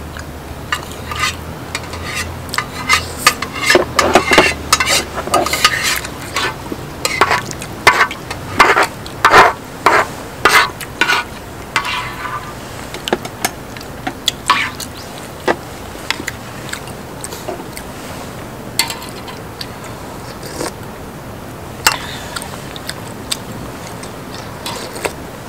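Cutlery clinking and scraping against dishes as food is stirred and scooped, a quick run of clinks over the first half, then a few scattered clinks.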